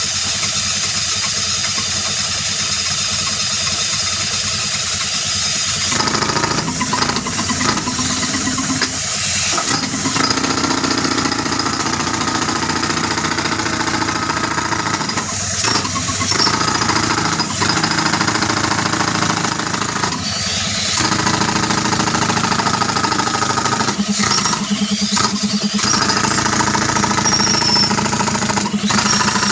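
Tractor-driven air compressor engine running steadily. About six seconds in, a pneumatic breaker starts hammering into the rock of the well floor and keeps on, with several short pauses.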